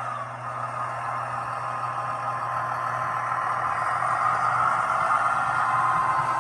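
Model London Underground train running through a station, making a steady whine over a low hum. The sound dips just after the start, then grows louder as the train passes.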